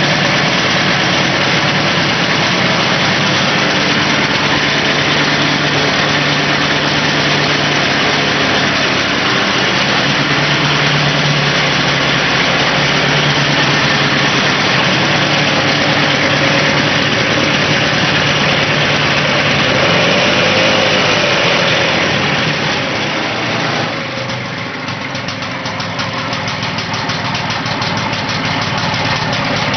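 Victa Silver Streak 160cc two-stroke lawn mower engine running steadily. About 23 seconds in the sound drops a little in level and changes tone, then builds back.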